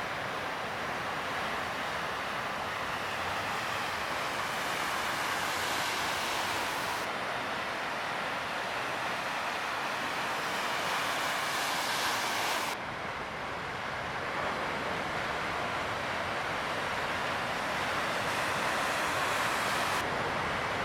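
Steady rush of ocean surf breaking, mixed with wind noise on the microphone. The tone of the rush changes suddenly about 7 and 13 seconds in.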